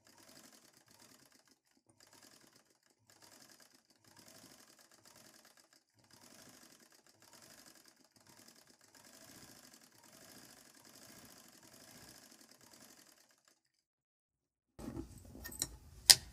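Tailor's sewing machine with an electric motor, running faintly in short runs of about half a second to a second as the hooped cloth is stitched for embroidery. Near the end, louder handling noise with one sharp click.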